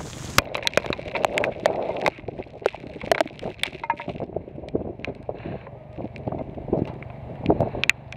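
Irregular sharp ticks and taps of storm rain striking a car's roof and glass, a few to several a second, over low wind noise.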